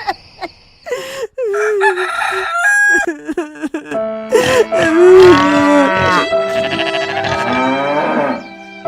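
Farm-animal calls, a cow mooing among them, with pitched calls that rise and fall and peak about halfway through. Held music tones sound under the calls in the second half.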